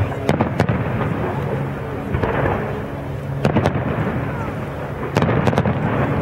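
Fireworks bursting overhead: three quick clusters of sharp bangs, near the start, about three and a half seconds in and again about five seconds in, over a continuous background din.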